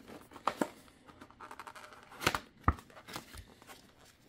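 Paperboard product box being opened by hand: the flap pulled back with rustling of card and packing, and scattered sharp clicks and taps, the loudest a little past two seconds in.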